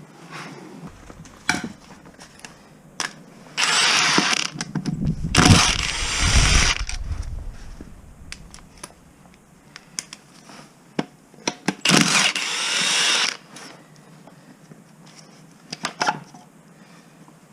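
Mechanic's tool work: a cordless power tool runs in two short bursts, about four seconds and twelve seconds in, with a heavy low knock and rumble between them and scattered metallic clicks and clanks.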